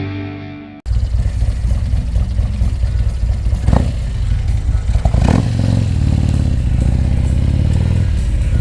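Harley-Davidson CVO Street Glide's V-twin engine running as the bike is ridden, picked up by a helmet-mounted mic, with a couple of brief rises about three and a half and five seconds in. Intro music fades and cuts off under a second in, just before the engine sound starts.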